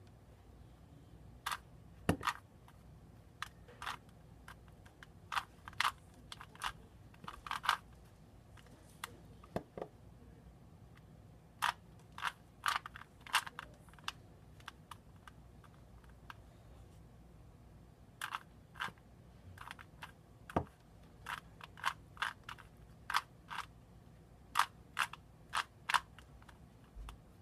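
Plastic 3x3 Rubik's cube being turned by hand during a solve: irregular clicks and clacks of the layers snapping round, in quick clusters, with a pause of a few seconds past the middle.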